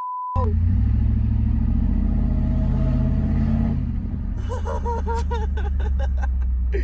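Ford Lightning pickup's V8 engine running with a steady low rumble that rises slightly, then settles about four seconds in. It is preceded by the last moment of a steady electronic beep tone.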